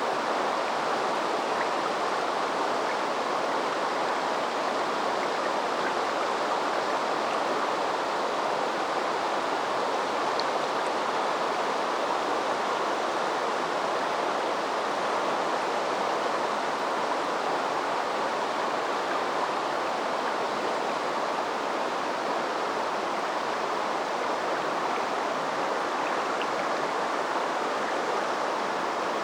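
River water flowing steadily, an even, unbroken rushing.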